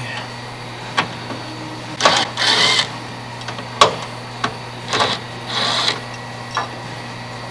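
Cordless drill driving small screws in three short bursts, the longest nearly a second, with a few sharp clicks between them.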